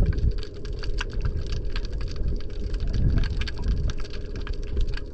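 Underwater sound over a rocky reef: a steady crackle of sharp, irregular clicks from snapping shrimp, over a low rumble of water that swells and eases every second or so.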